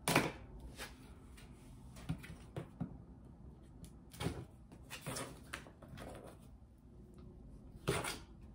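A package being handled and cut open with a knife: scattered rustles, taps and knocks, the loudest right at the start.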